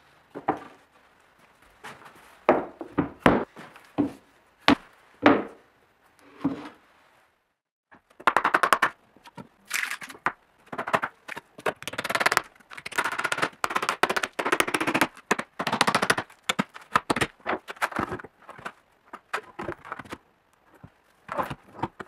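Wooden knocks and clatter as a plywood board is lifted off and wooden strips and wedges are pulled out of the frame around an end-grain oak and ash panel glue-up. A few separate knocks come first, then a long run of quick rattling knocks in the middle.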